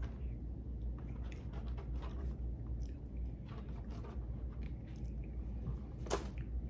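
A person chewing food close to the microphone: a run of small wet mouth clicks and crunches, with one sharper click near the end.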